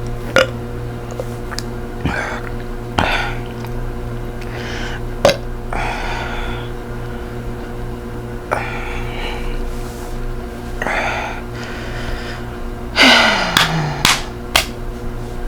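A woman's burps and breathy gasps, with a few sharp slaps on her bare belly. Near the end, a loud low burp falling in pitch is followed by three quick slaps. A steady hum runs underneath.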